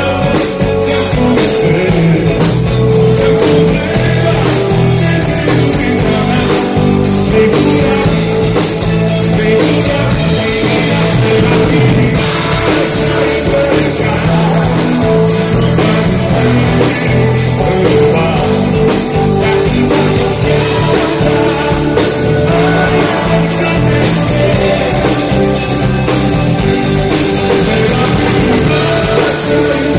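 Live rock band playing loud and without a break: electric guitar, bass and drum kit, with a male singer.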